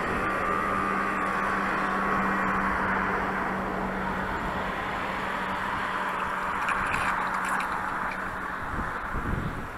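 A motor runs steadily with a low hum under a hissing whirr. About nine seconds in the hum drops away and wind buffets the microphone.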